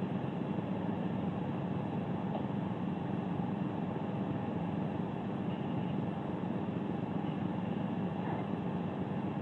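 Steady low hum of background noise, even throughout with no distinct events.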